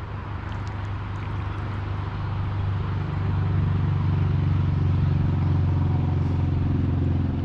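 A steady engine drone of even pitch that grows louder about three seconds in.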